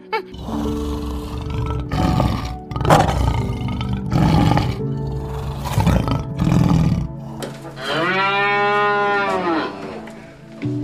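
A lion roaring and grunting in a run of rough calls. Near the end a cow gives one long moo that rises and then falls in pitch. Background music plays underneath.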